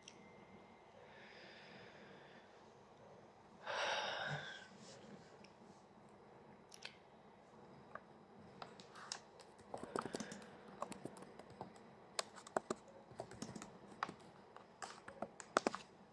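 Faint typing on a computer keyboard: irregular key clicks that begin about eight seconds in and grow denser toward the end. About four seconds in there is one short, louder burst of noise.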